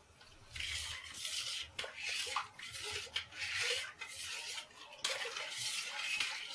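Brew spoon stirring and scraping against the inside of a pot in a run of quick strokes starting about half a second in, as dried malt extract is mixed into the water to dissolve its clumps.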